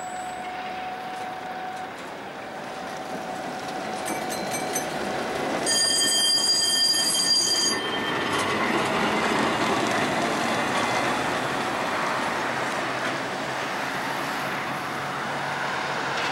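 A vintage tram passes close by. Its steel wheels squeal on the rails in a high, piercing tone for about two seconds, around six seconds in. After that it rumbles as it rolls away along the track.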